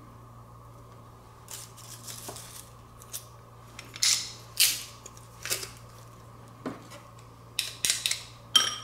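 Metal garlic press clicking and scraping as garlic is squeezed through it and scraped off with a knife: a run of short, sharp clicks, loudest about four seconds in and again near the end.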